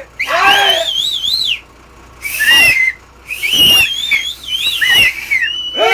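People whistling loudly with their mouths in three wavering, warbling bouts, the last one the longest, with a shout at the start.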